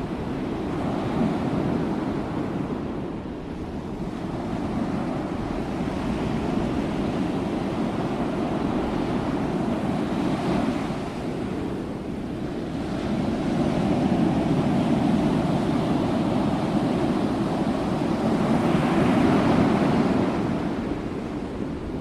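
Ocean waves breaking and washing on the shore, a steady surf noise that swells and ebbs slowly, with the biggest surge in the second half.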